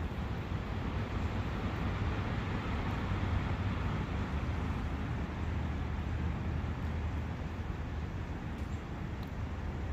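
Outdoor countryside ambience: a steady rushing noise over a low rumble, swelling a little a few seconds in and then easing back.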